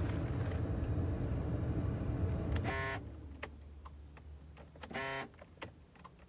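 Car engine running, then shut off about three seconds in as the ignition key is turned off. A short electric buzz from the door-lock actuator then repeats about every two seconds, with faint clicks between. The owner takes the buzz for a faulty actuator with broken plastic gears.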